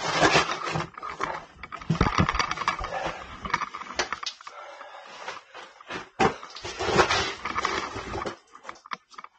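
Close heavy breathing with scraping and rustling against rock, in irregular bursts with scattered knocks.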